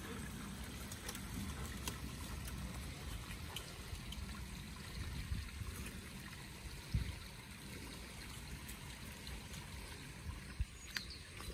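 Small woodland creek trickling steadily, with scattered light clicks and a sharper knock about seven seconds in.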